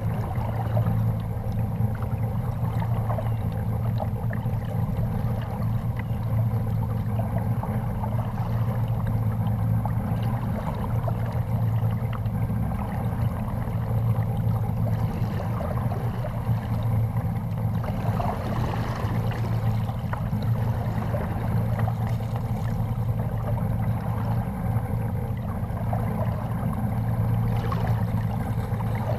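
Water lapping and gurgling against the hull of a plastic fishing kayak on choppy water, over a steady low hum.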